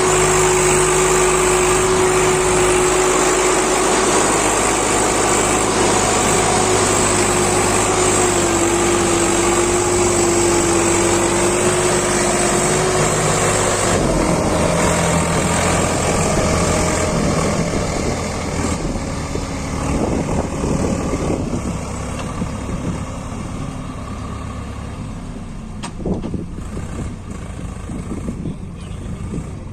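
Swaraj tractor's diesel engine running steadily with a whine over it, working with a trolley loaded with mud. About halfway through, the note shifts and the engine sound grows quieter and less even.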